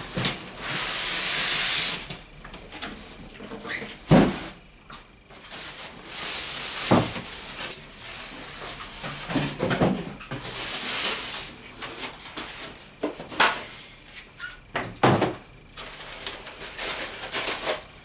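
Cardboard box being slid up off a sewing machine, then polystyrene foam packing pulled off it: scraping and rustling of cardboard and foam, with a few knocks as pieces are set down on the table.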